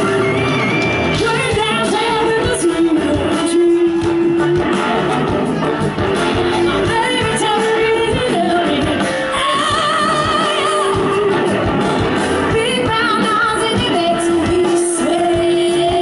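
Live band with saxophones, electric guitars, bass and drums playing a song, a woman singing lead with long held notes.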